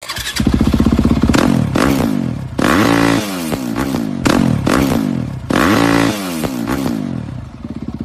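A dirt bike engine revving again and again, its pitch climbing and falling with each twist of the throttle, each rev starting abruptly.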